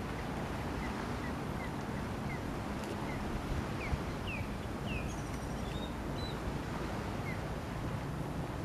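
Steady wind rumble on the microphone over open water, with a bird giving a series of short chirps that grow louder and higher about halfway through.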